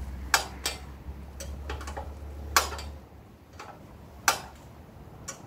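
Sharp metallic clicks and taps of a hand wrench working bolts on a lawn tractor's frame, a few loud ones spaced irregularly among fainter ticks, over a low hum that stops about three seconds in.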